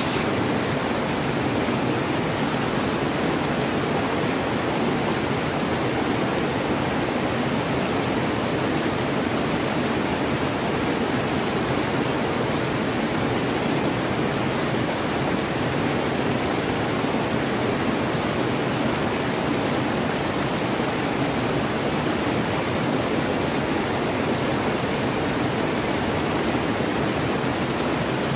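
River rapids: white water rushing and tumbling over rocks in a steady, unbroken rush.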